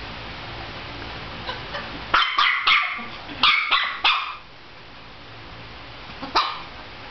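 Chihuahua puppy barking in play: a quick run of about six sharp yaps some two seconds in, then one more near the end.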